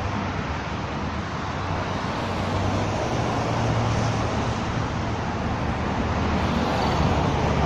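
Road traffic noise from cars passing on a nearby street: a continuous low rumble and tyre hiss that swells a little now and then.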